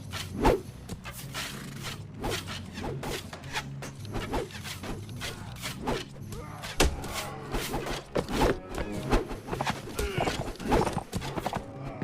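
Music playing with a run of irregular clip-clop knocks over it.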